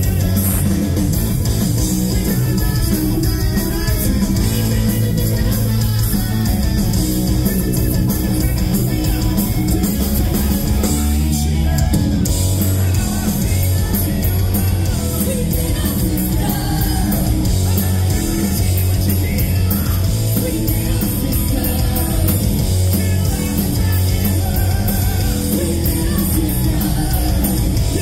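Live hard rock band playing loud with distorted electric guitar, bass guitar and drums, a male lead singer and a female guest singer trading vocals in a duet. Recorded from the crowd, so the sound is full of the room's PA.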